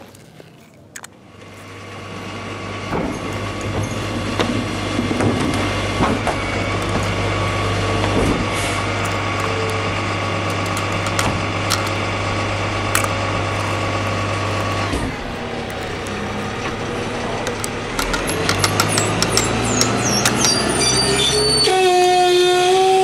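Heavy truck engine running steadily with a constant low hum, swelling in over the first couple of seconds. Near the end comes a quick run of clicks and a short pitched sound.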